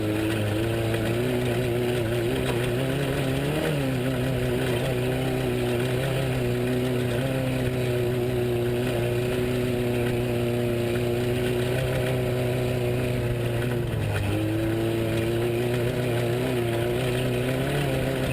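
Off-road race truck engine running at a nearly steady speed, with a brief rise and fall in pitch about three and a half seconds in. The pitch dips and climbs again around fourteen seconds.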